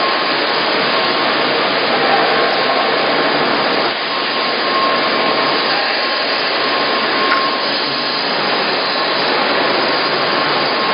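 Steady machinery noise of a milk processing plant, with pumps and motors running, carrying a faint steady whine.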